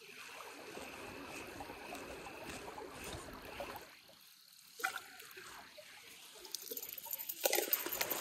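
A spinning reel being cranked with a faint steady whir, then water splashing as a hooked creek chub is pulled to the surface and lifted out near the end, the splashing getting louder.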